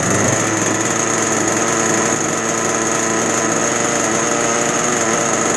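Zenoah two-stroke gas RC boat engine jumping up from idle and holding a steady high speed, running evenly.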